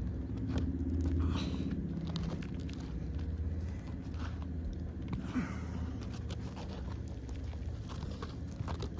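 Scattered small scrapes, crunches and clicks of asphalt shingles being handled and worked loose to get at their nails, over a low steady hum.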